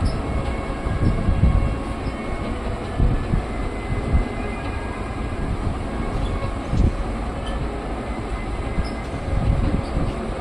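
A moving train: a steady rumble of wheels on the track with irregular low knocks.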